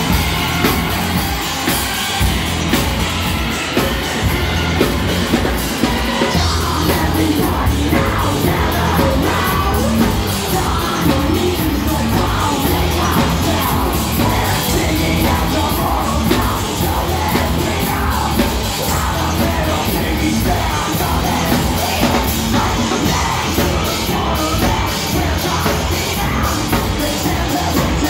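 Live heavy metal band playing loudly, with distorted guitars, pounding bass and drums, and yelled vocals over the top. The sound is dense and continuous, with no breaks.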